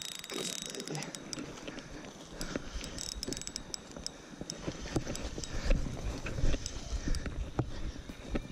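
A spinning reel clicking as a hooked salmon is played, with sharp rapid clicks over the first few seconds. Then comes a string of irregular low thumps and rustles from movement on the grassy bank close to the body-worn microphone.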